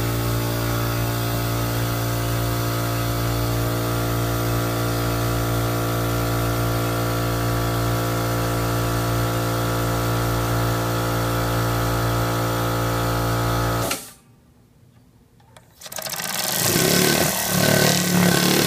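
Small three-cylinder radial compressed-air engine running fast on air from a compressor, giving a steady, even buzzing hum. About fourteen seconds in the sound cuts off almost to silence for two seconds, then returns rougher and louder.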